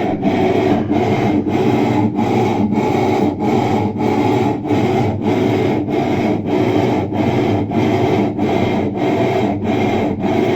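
Electrolux LTE12 washing machine running with a loud, rough grinding noise that pulses about one and a half times a second. The noise persisted after the drive mechanism was replaced, and the owner takes it for worn bearings in the motor.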